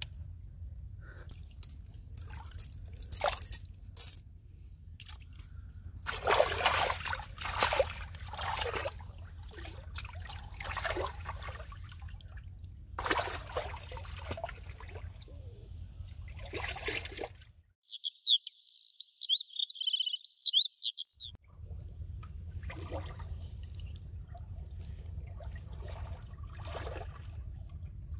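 Iron chain links clinking at first, then water splashing and sloshing in bursts as a man wades and works his hands in shallow river water, over a steady low rumble. About two-thirds of the way through, the rumble drops out for a few seconds of high chirping calls.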